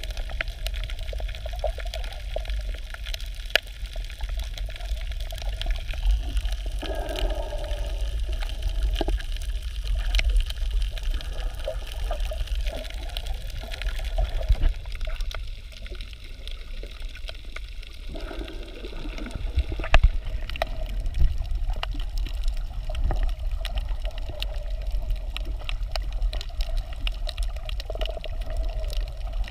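Underwater sound picked up by a submerged camera over a coral reef: a steady, muffled low rumble of moving water with many scattered clicks and crackles.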